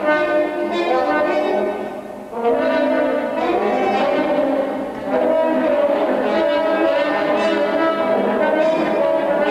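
Trombone ensemble playing together in harmony: chords of many trombones, falling away briefly about two seconds in and again near five seconds, then a long held chord.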